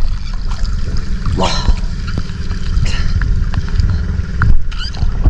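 Sea water lapping and sloshing close to a microphone held at the waterline, with a steady low rumble. A single sharp knock near the end.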